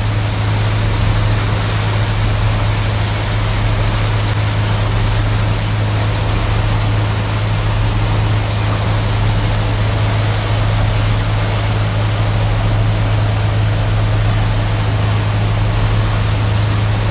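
Boat engine running steadily under way, a constant low drone, with an even rush of water and wind over it.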